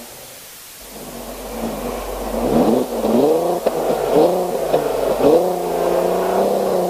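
Volkswagen Golf R32's 3.2-litre VR6 engine revved in a series of quick throttle blips, the pitch shooting up and dropping back four or five times, then settling into a steadier, slowly rising note.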